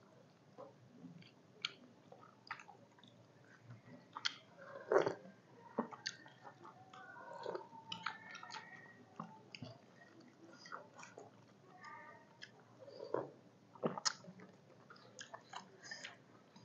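Two people chewing mouthfuls of food close to the microphone, with scattered small clicks and mouth noises. The loudest bite or click comes about five seconds in.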